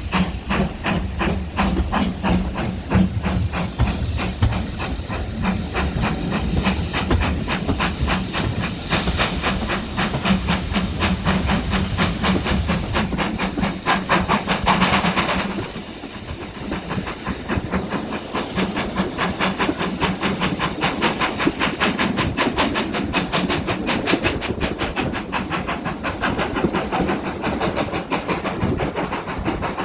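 Steam locomotive working under power: rapid, even exhaust beats over a steady hiss of steam. About halfway through there is a louder, higher rush of steam lasting a second or two, and then the beats carry on.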